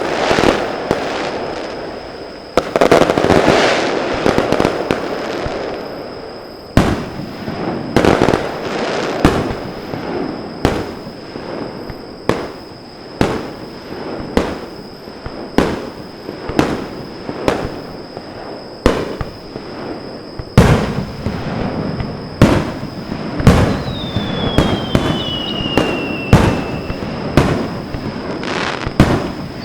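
Fireworks display: aerial shell bursts going off in quick succession, about one or two a second, over continuous crackling, with a heavy cluster about three seconds in. A whistling firework gives a falling whistle near the end.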